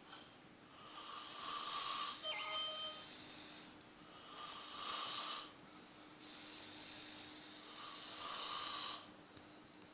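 A person snoring heavily: a breathy rasp about a second long, repeating every three seconds or so.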